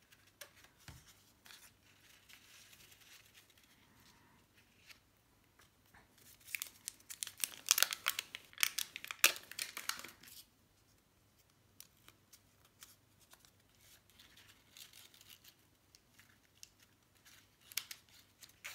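Cardstock paper petals being handled, pressed and stuck together, with crinkling and crackling paper sounds that grow busy and loudest from about six to ten seconds in, then turn sparse and quiet.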